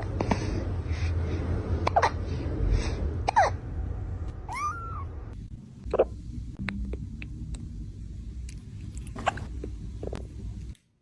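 A cat hiccuping: short, sharp hiccups a second or a few seconds apart, with a brief high squeaky call in between.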